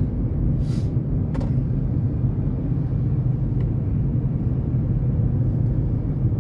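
Steady low rumble of engine and tyre noise inside a Honda Element's cabin while driving at road speed, with a brief hiss about a second in.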